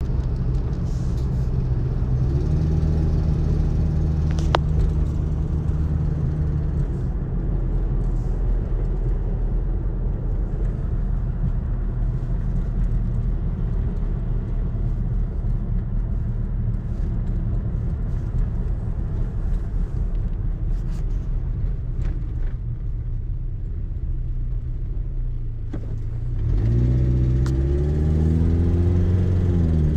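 Car engine running, recently replaced with a brand-new engine: steady at first, then a rougher, noisier stretch for most of the middle, then the revs rise near the end and hold. The owner hears a knock-like noise from it under load that he cannot tell apart as engine knock or an exhaust leak.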